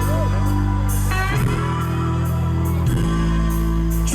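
Live rock band playing an instrumental passage between vocal lines, with held guitar and bass chords changing about every second and a half.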